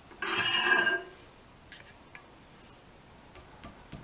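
Screwdriver prying a formed 14-gauge stainless steel strip out of a press-brake die: one short metallic scrape with a ringing squeal, under a second long. A few light metal ticks and a small knock follow near the end.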